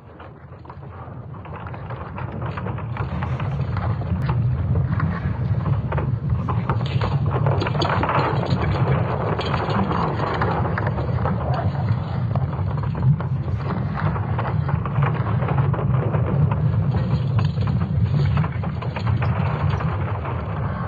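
A deep, rumbling drone with a crackling hiss over it, presented as the sound of the Earth's magnetic field. It swells in over the first few seconds, then holds steady.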